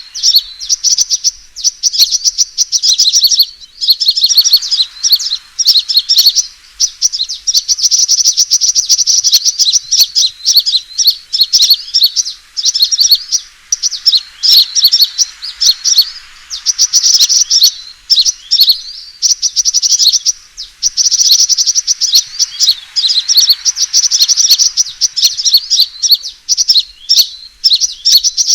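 Sunbird calls of the 'fighting' kind used as a trapping lure: a dense run of rapid, high chirps and trills, broken by brief pauses every few seconds.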